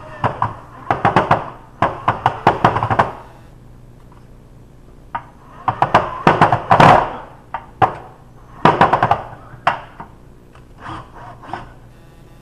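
Cordless drill driving screws through an under-cabinet fluorescent light's backing into the underside of a wooden cabinet, heard as several short bursts of rapid clicking and knocking.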